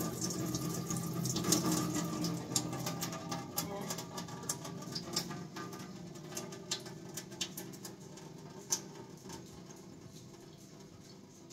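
Cloudy rice-rinse water pouring from a stainless steel rice washer's drainage holes into a steel sink, the flow fading to a thin trickle with scattered drips ticking.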